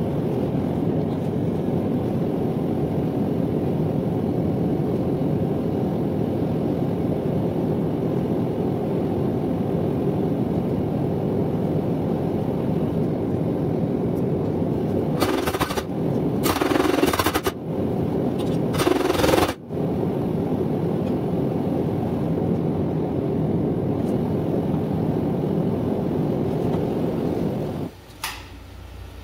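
Propane forge burner running with a steady roar that cuts off near the end, as the forge is shut down. About halfway through, a few louder hissing bursts of a second or less break over it.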